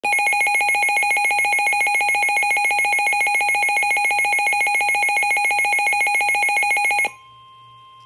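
Midland WR-400 NOAA weather radio's alarm sounding a loud, rapidly pulsing electronic beep that signals a severe thunderstorm warning alert. It cuts off about seven seconds in, and a much quieter steady single tone follows: the broadcast's warning alert tone.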